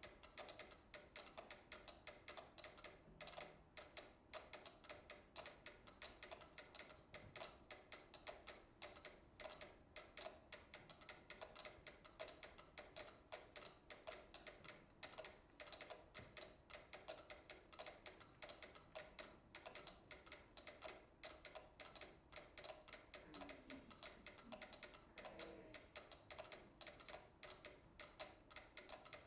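Four pyramid-shaped mechanical metronomes ticking quietly at once at different tempos, their clicks overlapping in a dense, shifting pattern that never settles into one beat.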